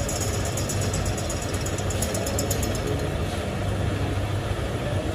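Metal lathe running steadily with a low hum as it turns a metal workpiece against the cutting tool. A rapid high ticking runs over the hum until about three seconds in.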